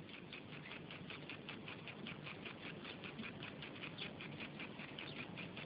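Impact irrigation sprinkler ticking: a faint, fast, even run of ticks, about seven a second.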